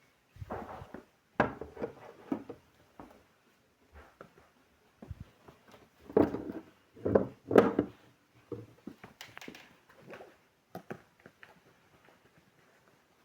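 Objects being handled and set down on a dressing table during tidying: irregular knocks, clatters and rustles, with a cluster of louder knocks about six to eight seconds in.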